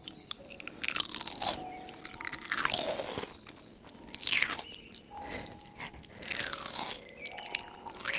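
Crisp food crunching in four loud rasping bursts, each a second or less long, with small clicks between them.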